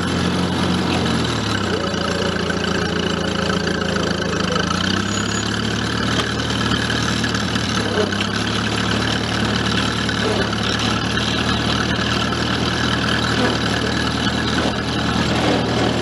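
International Harvester Cub Lo-Boy tractor engine running steadily on a snow-plowing pass. Its pitch drops about a second in and rises again near five seconds.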